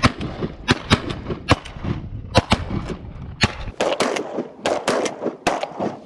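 A volley of shotgun fire from several duck hunters shooting at once: more than a dozen sharp shots in quick, irregular succession, some overlapping.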